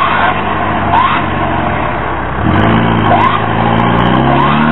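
Land Rover Series 4x4's engine running under load in deep mud, its pitch climbing steadily from about halfway through as it is revved harder, with a few short rising squeaks.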